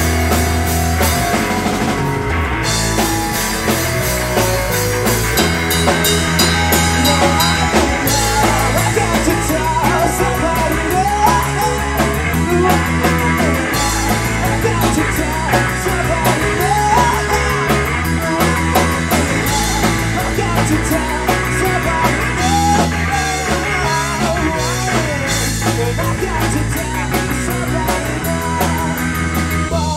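Live rock band playing a song: a drum kit keeping a steady beat under guitar, with a singing voice over the top. The recording is dense and heavily compressed.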